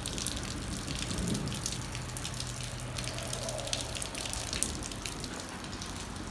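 Steady rain falling, with water dripping and splashing in many small, quick ticks.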